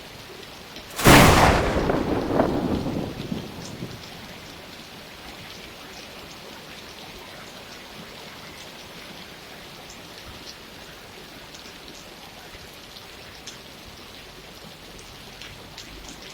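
Steady rainfall with a sudden thunderclap about a second in that fades over about three seconds, leaving rain with scattered raindrop ticks.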